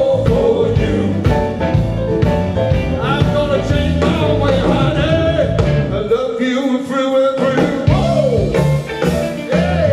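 Live blues band playing through a PA: drums, bass, keyboard and guitar, with a lead line bending in pitch over the top. The bass and drums drop out for about a second just past the middle, then come back in.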